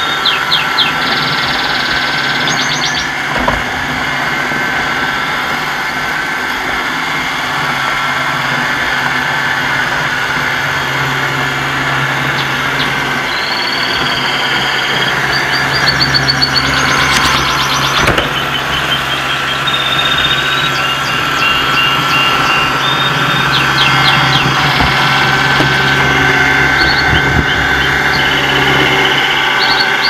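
iRobot Roomba 770 robot vacuum running: a steady hum of its vacuum motor and brushes with a thin whine on top, growing a little louder in the second half as it comes closer.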